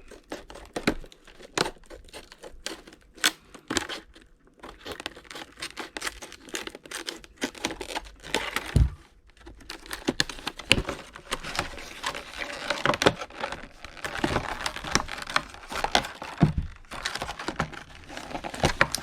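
Plastic retail packaging being cut and torn open by hand to free a pair of motorcycle grips: irregular crinkling and tearing with many small clicks, and a single knock about nine seconds in.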